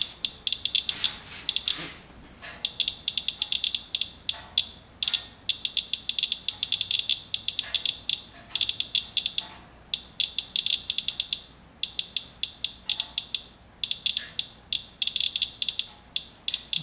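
Radalert Inspector Geiger counter chirping at each detected count: a fast, irregular run of short high beeps, bunched with brief gaps. The count rate marks a rain-water sample reading many times above background.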